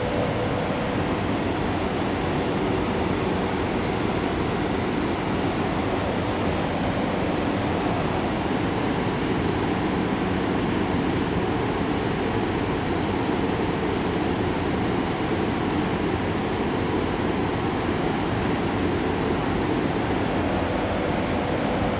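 GE Silverliner IV electric multiple-unit train standing at the platform, its on-board equipment running with a steady hum and a faint high whine.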